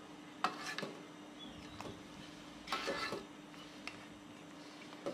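Metal spatula scraping and clinking against a wok as large prawns are turned over in sauce: a handful of separate scrapes and taps, the busiest about three seconds in, over a faint steady hum.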